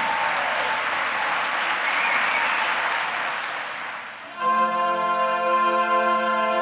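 Audience applause that fades away, then about four seconds in a live orchestra comes in with steady held notes.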